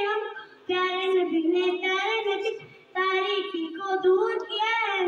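A young girl's voice in melodic recitation, chanting in long held phrases with short breaths between them, about three phrases.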